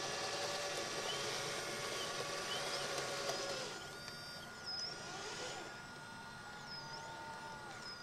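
RC scale-model Liebherr 634 crawler loader's electric drive and hydraulic pump whining as it pushes sand. About halfway through the sound drops a little, and rising and falling whines follow as the machine reverses and works its bucket.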